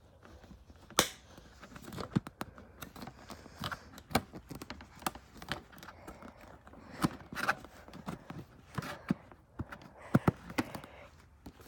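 Plastic fairing panel on a Kawasaki Ninja 300 being worked and pressed into place, giving irregular clicks and knocks of hard plastic.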